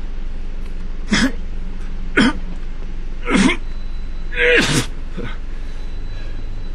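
A man hacking and coughing four times about a second apart, the last one longest and retching, a staged hacking fit as if bringing up a hairball.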